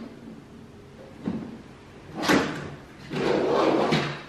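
Pistols being picked up and handled on a table: a short knock about a second in, a louder clatter near the middle, and a longer scraping rattle near the end.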